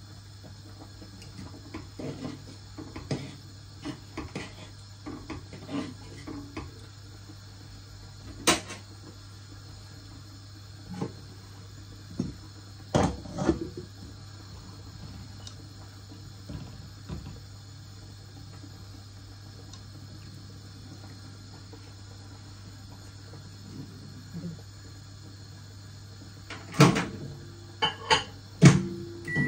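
Scattered kitchen knocks and clatters of utensils and dishes, with sharper ones about eight and thirteen seconds in and a few close together near the end, over a steady low hum.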